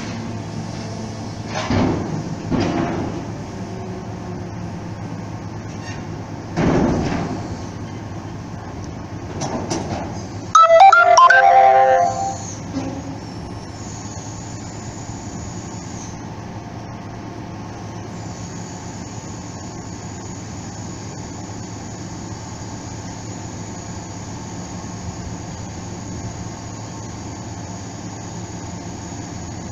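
Ro-ro ferry's bow visor being lowered shut, with a steady low machinery hum. About ten seconds in comes a loud burst of ringing tones lasting about a second and a half, the loudest thing heard.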